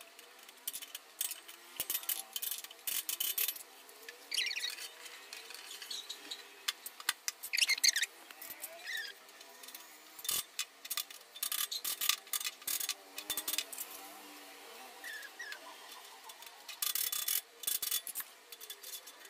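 Steel shelf beams of a boltless rack being slotted into the keyhole holes of the steel uprights: irregular light metal clicks and knocks, with a few short squeaky metal scrapes and a quick run of clicks near the end.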